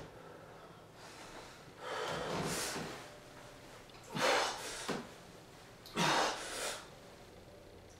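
A man breathing hard while doing pull-ups: three forceful, breathy exhalations about two seconds apart, the breathing of exertion as he pulls himself up to the bar.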